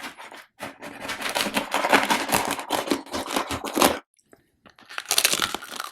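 Close-miked crunching and chewing of crisp food, mukbang style: a long run of dense crackly crunches, a short pause, then another burst of crunching near the end.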